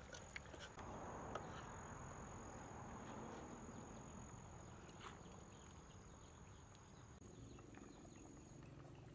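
Faint steady high-pitched insect trill that cuts off shortly before the end.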